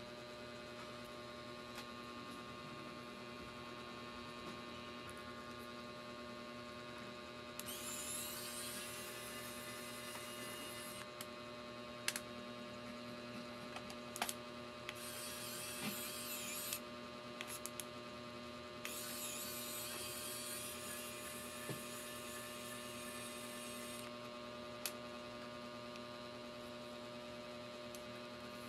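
Steady electrical mains hum, with a few small clicks and several stretches of scratchy rubbing noise from hands working on the laptop as its battery is being removed.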